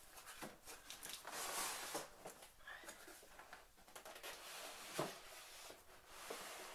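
Corrugated cardboard shipping box being handled: soft rustling and scraping of cardboard as it is shifted and slid, with a few light knocks, the loudest about five seconds in.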